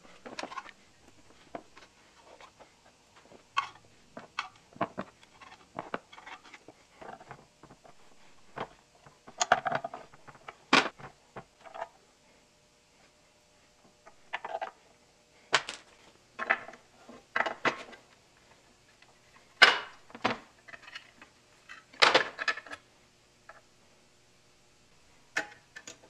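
Irregular clinks, taps and knocks of tools and small metal engine parts being handled while an antique hit-and-miss engine is taken apart, several of them ringing briefly.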